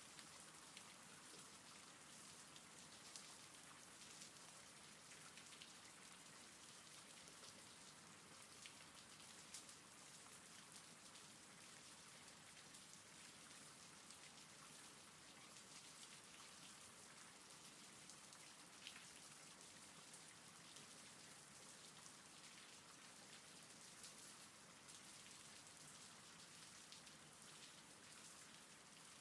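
Faint steady rain: an even hiss with scattered sharp drop ticks.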